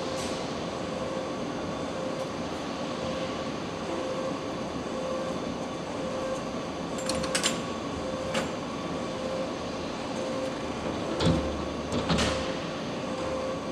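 Car assembly plant machinery: a steady mechanical hum with a constant tone, broken by a few sharp metallic clanks, the loudest two near the end.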